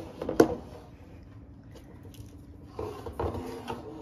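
Metal mesh baskets with wooden handles being handled on a table: a sharp knock about half a second in, then a second stretch of scraping and rattling near the end.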